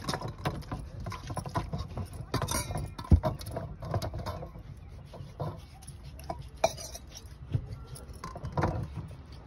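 Carrots being washed by hand in a stainless steel plate: water splashing and the carrots rubbed and shifted, with irregular clinks and knocks of steel on steel. One sharp knock about three seconds in.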